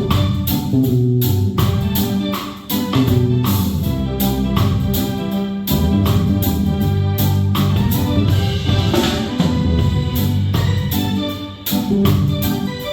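Live band playing an instrumental passage of a reggae song: keyboard with an organ sound over bass guitar and a drum kit keeping a steady beat.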